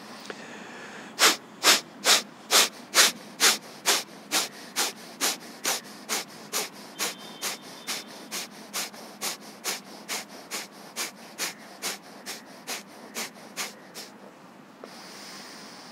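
Kapalbhati breathing: a man's sharp, forceful exhalations through the nose in a steady rhythm, a little over two a second, softer toward the end. They stop about 14 seconds in, followed by one longer, slower breath.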